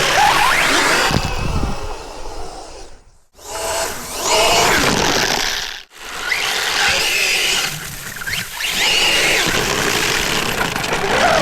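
Electric 1/8-scale RC buggy driven on pavement with 3D-printed paddle tires. Its brushless motor whines up and down in pitch with the throttle over the rattling, scraping noise of the paddles on the hard surface. The sound drops away briefly twice, a few seconds apart.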